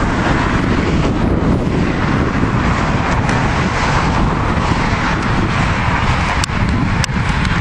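Wind rumbling and buffeting on the camera microphone, a steady dense noise. Two sharp clicks come near the end, a little over half a second apart.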